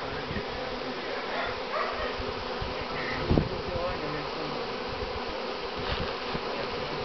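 A honeybee swarm humming steadily as thousands of bees crawl from a sheet up into a wooden hive box while being hived. A short thump about three seconds in.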